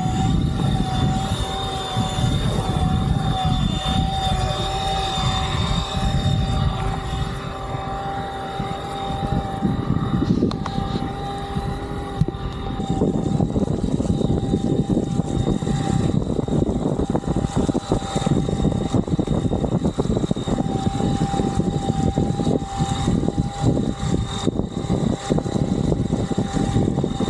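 Flite Ultra eFoil's electric motor and propeller whining at a steady pitch under a rush of wind and water noise, the rushing growing louder about halfway through.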